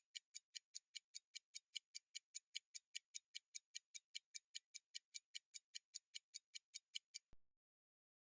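Mechanical pocket watch ticking, a quick, even beat of about five ticks a second, until it cuts off suddenly about seven seconds in.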